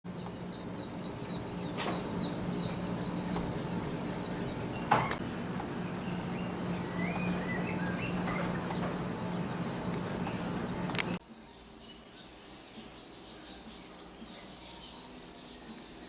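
Wild birds calling over forested hillside, a steady stream of short, high, falling chirps repeated many times a second, with a few lower gliding calls mixed in. A steady low hum and a few sharp clicks run beneath until about eleven seconds in, when the hum cuts off suddenly and the chirping carries on more quietly.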